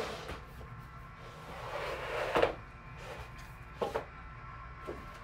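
White flat-pack shelf boards being handled on the floor: a scraping slide that builds to a sharp knock about two and a half seconds in, then two lighter knocks near the end as boards are set down.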